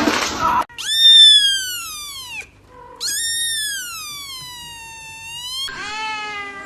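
A cat meowing: two long, drawn-out meows that fall in pitch, the second longer, then a shorter, lower meow near the end. A brief noisy burst comes right at the start.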